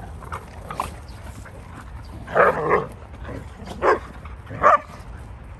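Dogs barking during rough play-fighting: three loud barks, the first a little longer, about two and a half, four and nearly five seconds in.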